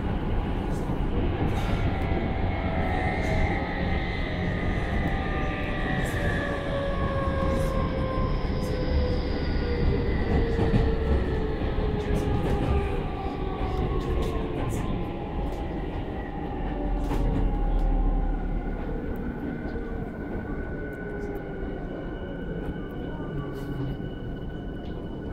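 Electric commuter train heard from inside the carriage as it slows: the motor whine falls steadily in pitch over a continuous rumble of wheels on rail, with scattered light clicks. Near the end two steady high tones remain as the train nears a stop.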